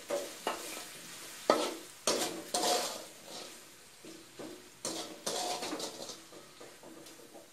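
Metal spatula scraping and knocking against a wok while stirring sticky, sugar-glazed pork pieces. The strokes are irregular, a few a second, with short pauses between them.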